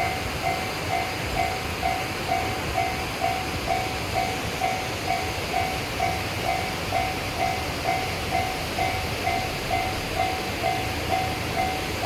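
Japanese railway level-crossing warning bell ringing in an even, steady rhythm of roughly two to three clanging strokes a second, the signal that a train is approaching.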